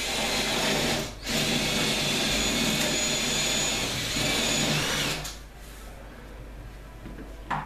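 Cordless drill with a 10 mm bit boring a starter hole through a kitchen worktop at a corner of the sink cut-out. The motor runs under load in two spells, a brief stop about a second in, then drilling on until about five seconds in.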